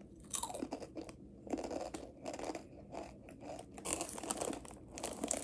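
Spicy Takis rolled tortilla chips being bitten and chewed: a run of irregular crunches.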